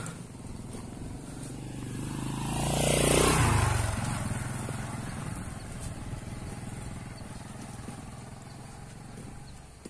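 A motorcycle passes by. Its engine grows louder to a peak about three seconds in, drops in pitch as it goes past, then fades away.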